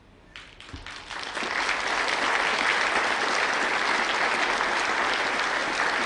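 Audience applause: a few scattered claps, swelling within about a second and a half into steady applause from a large crowd.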